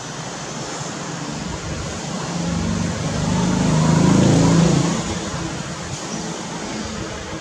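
Steady outdoor background noise, with a low rumble that swells to its loudest about four seconds in and then fades.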